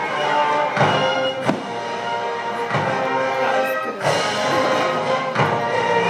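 Symphony orchestra playing sustained classical music, with several sharp thumps cutting through it at irregular intervals.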